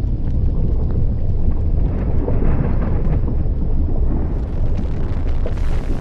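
Volcanic eruption: a deep, steady rumble with small crackles scattered through it.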